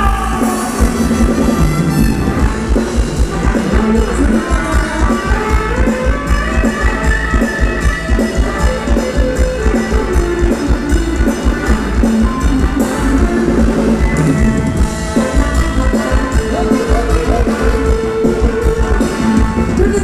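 Thai ramwong dance song played by a live band, with a steady drum-kit beat under the melody.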